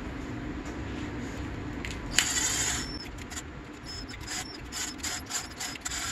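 Cordless drill/driver with a socket spinning the cylinder head nuts down onto a snowmobile's two-stroke engine. There is one short run about two seconds in, then a string of short clicks and brief bursts.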